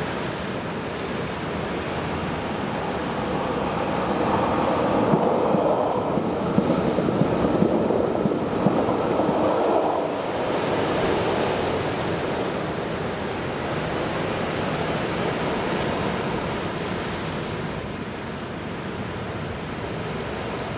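Sea waves washing in, a steady rushing with some wind, swelling louder for several seconds from about four seconds in before easing back.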